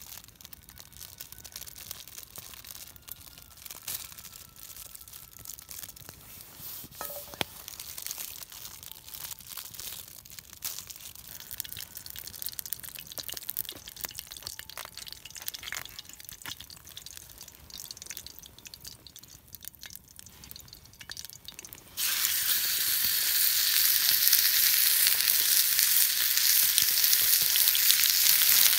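Faint scattered crackling and small clicks, then about 22 seconds in, food laid into a hot pan starts sizzling loudly and steadily.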